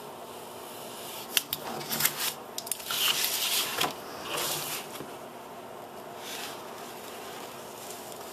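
A knife blade cutting through a manila file folder, scratchy slicing and crackling of the card in short uneven strokes with small clicks, loudest about three seconds in, along with rustling as the folder is shifted and turned.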